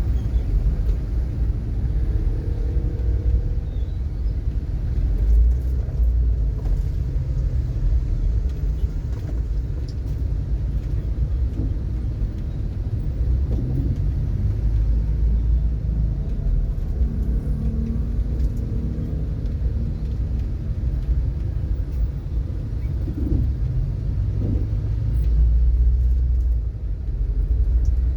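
Steady low rumble of a road vehicle moving in slow traffic, with a few faint passing tones over the rumble.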